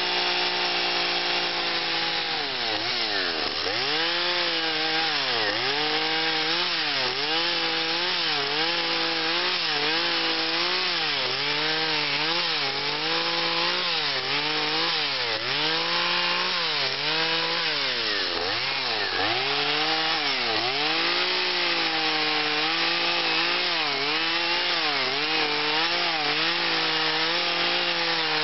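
Husqvarna two-stroke carving chainsaw running near full throttle while cutting into cottonwood. Its engine pitch dips and recovers roughly every second or two as the chain bites into the wood and is eased off.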